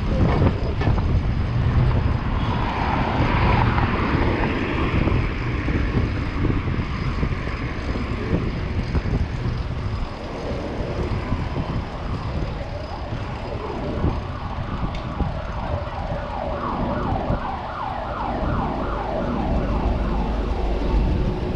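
City street traffic rumbling under wind on the microphone, with an emergency vehicle's siren sweeping up and down; in the last few seconds the siren switches to quick, repeated yelps.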